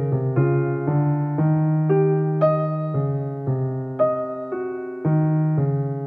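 Background music: an electric piano melody, notes struck about two a second over held low bass notes.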